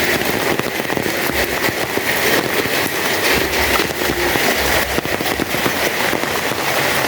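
Heavy rain falling steadily, a dense crackle of drops hitting nearby surfaces.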